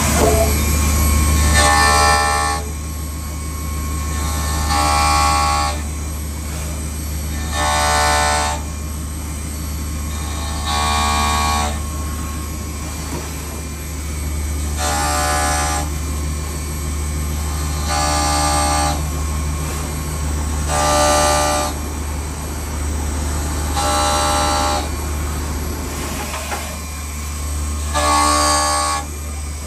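CNC milling machine with its end mill cutting a metal casting: a steady low machine hum, broken about every three seconds by a short, shrill ringing screech as the cutter bites into the part.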